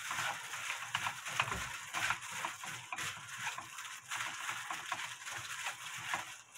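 A hand in a disposable plastic glove kneading and tossing boiled pork skin with garlic and oil in a frying pan: an irregular crackling rustle of the glove and the pork skin.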